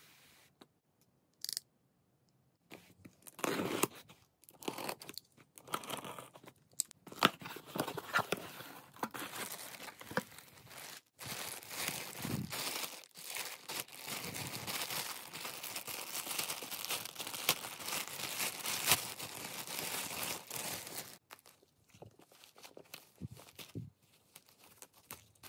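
Packaging being unpacked by hand: irregular tearing and crackling, then a plastic bag crinkling continuously for about ten seconds as it is pulled open, then softer rustling of tissue paper near the end.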